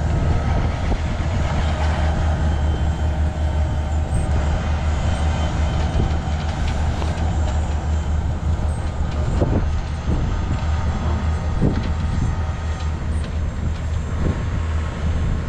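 A truck's engine running steadily with a low drone, with a few faint knocks past the middle.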